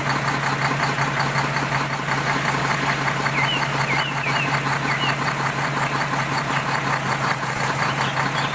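A small motor running steadily, with a steady low hum and a fast, even rattle.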